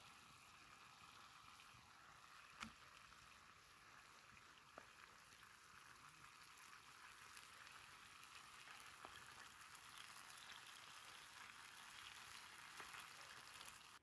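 Faint bubbling of a tomato stew with morel mushrooms simmering in a metal pot over a wood fire, with a couple of small ticks.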